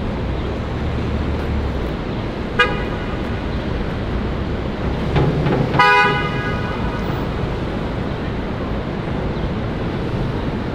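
Street traffic with steady road noise. A car horn toots briefly about two and a half seconds in, then gives a longer, louder honk about six seconds in.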